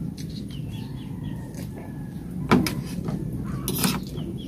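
Metal spoon and fork clinking and scraping against a plate of rice during a meal: a few short clicks about two and a half seconds in and again near the end, over a steady low background noise.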